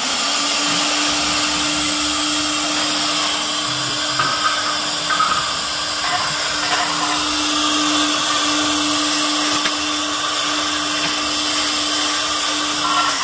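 CNC wood router spindle running at a steady pitch as its bit cuts a wooden cabinet-door panel, with an even hiss of cutting noise over the tone.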